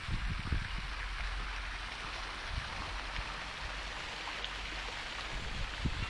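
Garden fountains splashing steadily, with irregular low thumps underneath.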